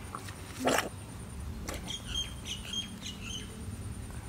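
A chicken lets out one short, harsh squawk about a second in, followed by a few quick, high chirps.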